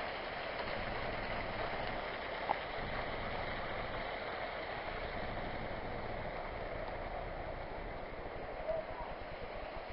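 Steady rush of water from a waterfall and its stream, with one brief click about two and a half seconds in.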